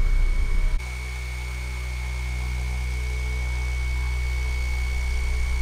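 Tarot 4008 brushless motor spinning a carbon-fibre propeller at full throttle on a test stand: a steady hum with a thin high whine above it, slowly getting louder. Its tone changes abruptly about a second in, at an edit.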